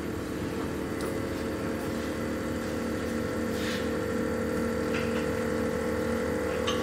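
Hydraulic pump of a concrete compression testing machine running with a steady hum while it loads a concrete specimen, the load still climbing short of failure. A few faint ticks sound over it.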